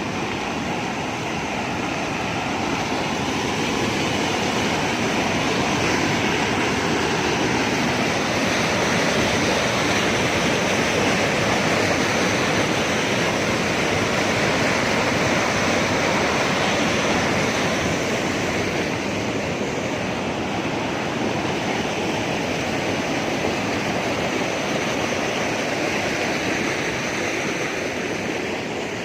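Rushing water: a loud, steady, unbroken rush that swells slightly in the middle.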